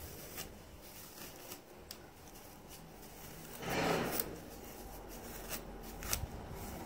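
A wide-tooth comb and fingers working through wet, product-coated curly hair to detangle it: soft rustling with small scattered clicks, and a louder rustle about four seconds in.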